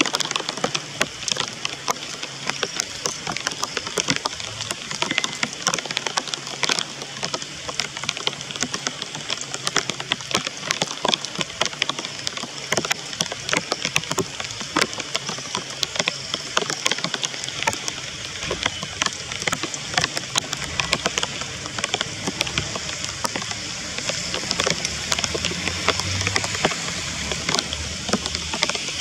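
Steady rain pattering, a dense run of irregular drop ticks over an even hiss.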